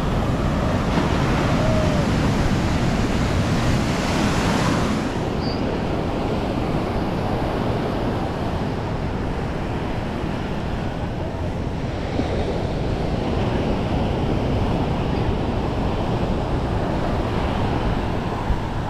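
Ocean surf breaking and washing up on a sandy beach, with wind on the microphone. A louder wave wash in the first few seconds ends sharply about five seconds in, then the steady roll of the surf continues.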